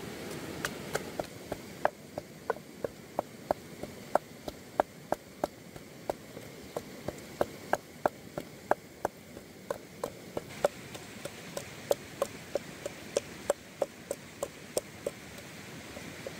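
A long, even series of sharp knocks, about three a second, over a steady low hiss.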